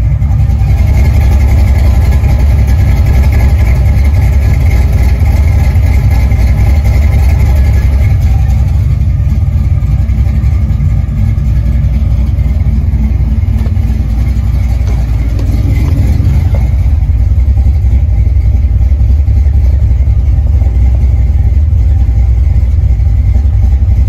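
Ford 302 (5.0 L) V8 idling steadily at about 850 rpm, with a deep exhaust rumble. It runs quiet with no valvetrain tap or knock, the slipped roller rocker having been refitted.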